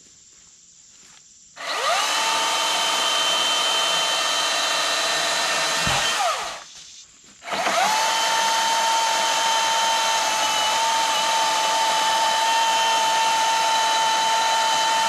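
Milwaukee M18 Fuel battery-powered top-handle chainsaw running at full speed with a steady electric whine, in two runs: it spins up about a second and a half in, winds down about six seconds in, then spins up again a second later and keeps running.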